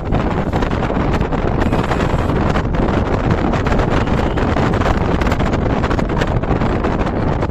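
Steady rush of wind and road noise from inside a moving car, with wind buffeting the microphone in many quick gusts.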